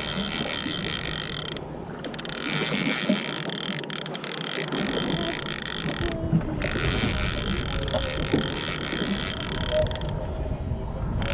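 Fishing reel being cranked to bring in a hooked striped bass, its gears whirring steadily and stopping briefly three times, over a low rumble.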